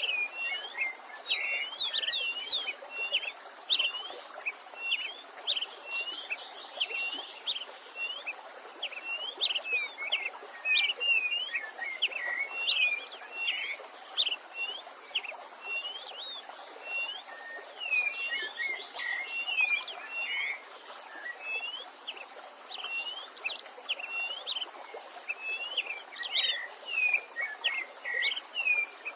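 Songbirds singing, a busy run of short high chirps and whistles several times a second, over a faint steady rush of stream water.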